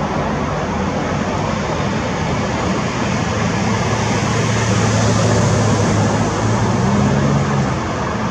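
US Coast Guard MH-65 Dolphin helicopter hovering: a steady, loud rotor and turbine noise with a low hum underneath. It grows a little louder in the middle and eases slightly near the end.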